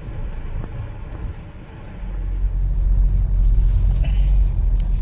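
Car on the move: a steady low road and engine rumble that grows louder about two seconds in.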